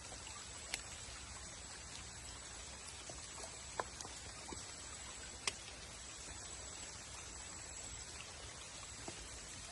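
Quiet mangrove forest ambience: a steady low hiss with a few scattered sharp clicks and ticks, and a thin high steady tone that fades in and out.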